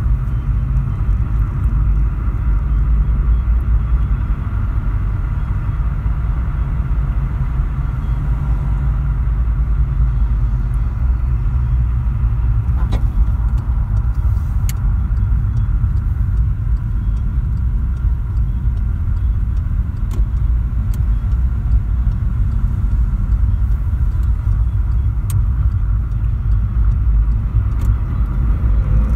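Steady low road and engine rumble heard inside the cabin of a moving Volkswagen Polo. Right at the end the engine note starts to rise as the car accelerates.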